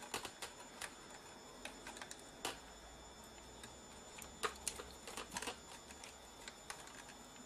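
Scattered light clicks and taps from hands handling the Sony PMW-EX1 camcorder's plastic body and ribbon cable during disassembly. The taps are loudest about two and a half seconds in, again near four and a half seconds, and in a quick cluster shortly after. A faint steady hum runs underneath.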